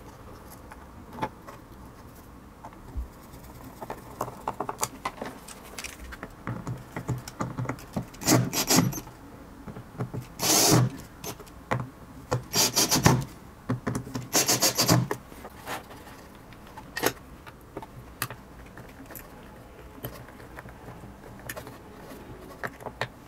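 Screws being driven into wood to fix metal pillow-block bearings, in four or five short bursts in the middle stretch. Small clicks and rattles of screws and metal parts being handled run in between.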